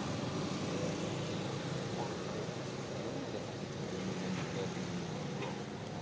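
Steady low rumble of background noise, with a couple of faint, short high chirps near the end.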